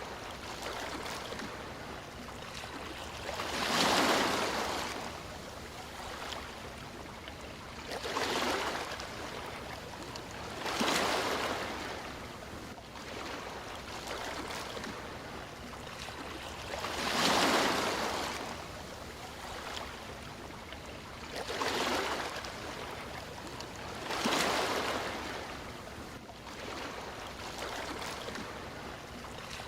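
Sea waves washing onto a shore: a steady surf hiss with a louder wave breaking and swelling every three to six seconds, about seven times.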